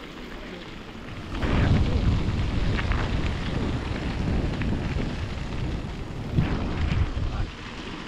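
Wind buffeting the microphone during a bike ride: a loud, low-pitched noise that rises suddenly about a second and a half in and falls back near the end.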